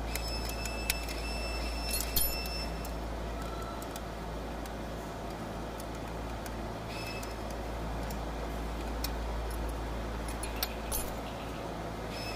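Scattered metallic clicks and clinks of hand tools and fasteners while a replacement starter motor is fitted, over a steady low hum.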